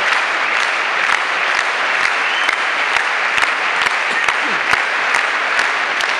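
Tennis stadium crowd applauding, a dense steady wash of clapping with single sharp claps close by standing out.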